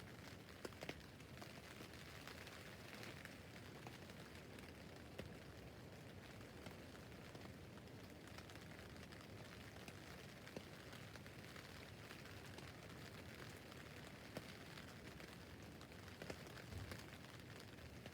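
Rain falling on a tent roof: a faint, steady hiss of rain, with scattered single drops striking a little louder now and then.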